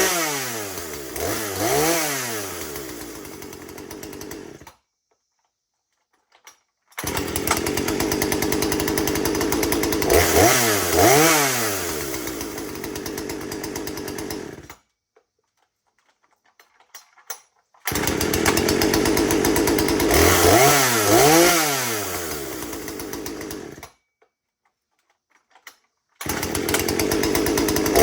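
Husqvarna 240 two-stroke chainsaw engine running and being revved up and back down several times. The sound cuts off abruptly three times, leaving a couple of seconds of near silence with a few faint clicks before the engine is heard again.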